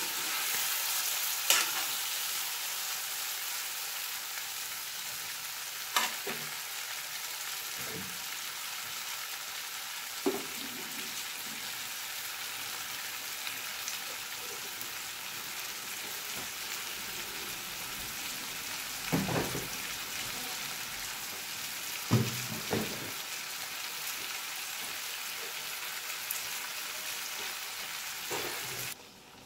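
Chicken and jackfruit pieces sizzling steadily in hot oil in a cast iron kadai, with a few sharp knocks scattered through.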